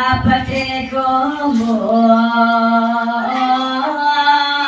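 A voice chanting a slow hymn in long, drawn-out notes, its pitch stepping slightly up and down and sliding between notes.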